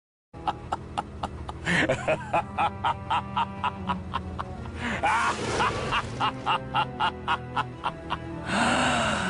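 Evil laugh sound effect: a long sinister laugh in rapid, evenly spaced 'ha' pulses, about three a second, over a low steady musical drone.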